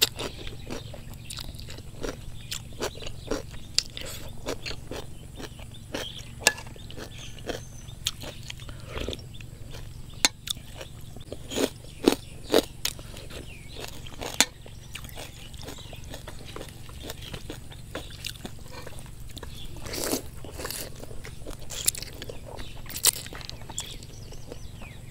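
Close-up eating sounds: rice noodles slurped in and chewed, with crunching of raw vegetables. Scattered sharp clicks and crackles run throughout.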